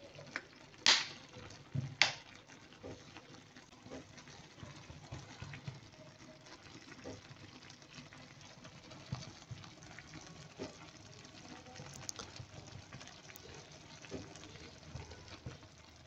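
Peas and vegetables in oil and water simmering in a clay tajine: faint, scattered bubbling and popping. Two sharper clicks sound about one and two seconds in.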